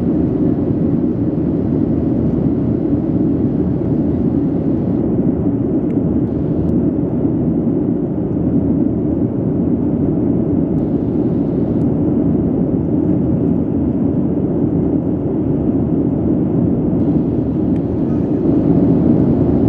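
Steady low rumble of engine and airflow noise heard inside the cabin of a Boeing 737-700 climbing after takeoff, from its CFM56-7B turbofans and the air rushing over the fuselage.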